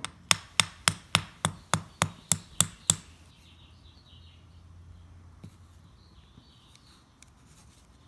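A small steel center punch is tapped in a quick, even series of about ten sharp metallic taps, roughly three a second, to drive the roll pin out of a Honda ignition lock housing. After about three seconds there is only faint scraping and handling of the metal parts.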